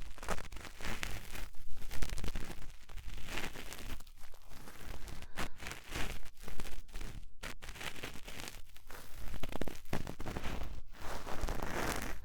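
Cotton swab rubbing and scraping in the ear of a 3Dio binaural microphone: close, scratchy rustling in irregular strokes.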